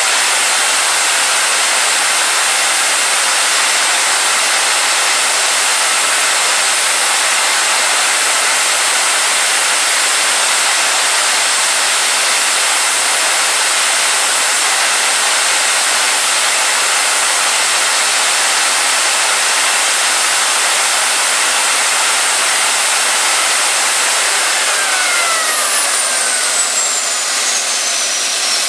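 Small WR27-1 gas-turbine APU running steadily at full governed speed: a loud, even jet rush and whine. About 25 seconds in, its whine starts falling in pitch as the turbine begins to spool down.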